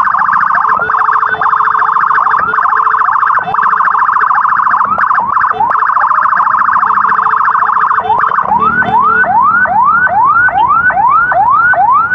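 Electronic emergency siren sounding loudly in a fast warble, then about eight seconds in switching to a quick rising yelp that repeats about two and a half times a second.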